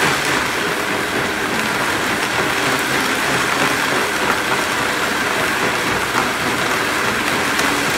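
Countertop blender running steadily at speed, puréeing soaked Irish moss and water into a paste.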